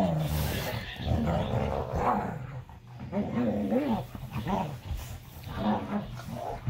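Two dogs play-growling at each other as they tussle over a toy, a string of short growls that rise and fall in pitch.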